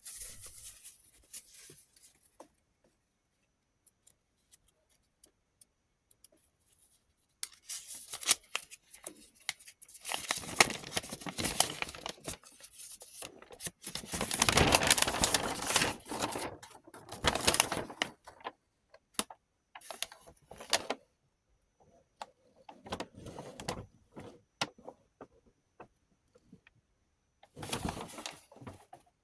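Small rotary tool accessories and their plastic packaging being handled: irregular clicks, rattles and rustling in clusters, busiest about halfway through.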